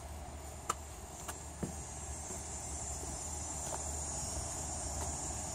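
Steady high-pitched chorus of insects in summer vegetation, growing a little louder, with a few footsteps in the first two seconds.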